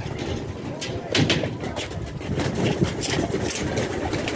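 Domestic pigeons cooing, with sharp clicks and rustles close to the microphone throughout.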